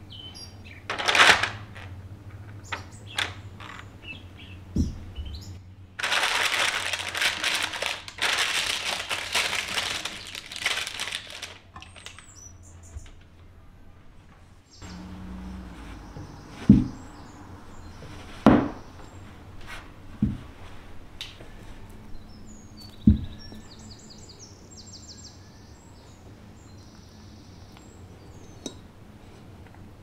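Parchment paper crinkling and rustling as it is handled, loudest for several seconds in the middle. Then come four sharp knocks of objects set down on a wooden tabletop.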